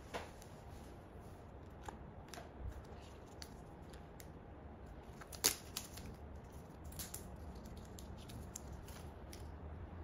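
Paper and cardboard packaging of an AirPods box being handled: light rustles, scrapes and soft clicks as the lid comes off, the charging case is lifted from its tray and its paper wrap is peeled away, with one sharper tap about halfway through.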